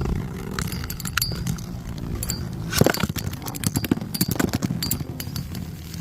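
Metal Fight Beyblade spinning tops clashing: repeated sharp metallic clicks and clinks, some with a brief high ring, the loudest hit about three seconds in. A steady low rumble of wind on the microphone lies under it.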